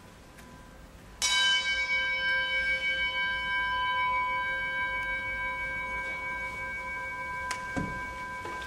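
A metal singing bowl struck once with a mallet about a second in, ringing with several steady overtones that slowly fade. A short click and a low knock come near the end.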